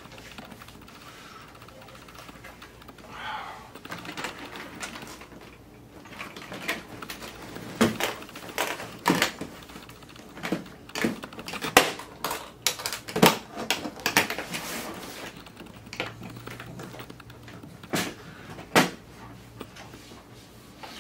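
Aluminium hard-shell equipment case being shut and handled: a run of irregular sharp clicks and knocks from its lid and metal latches.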